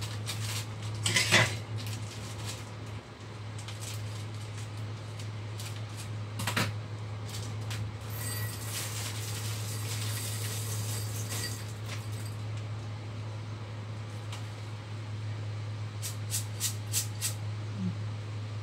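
Dishes and utensils handled at a kitchen counter: a few sharp knocks and clinks, a short hiss in the middle and a quick run of light clicks near the end, over a steady low hum.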